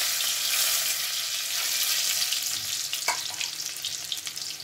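Chopped garlic frying in hot oil in a kadhai: a steady sizzling hiss that slowly fades, with one short knock about three seconds in.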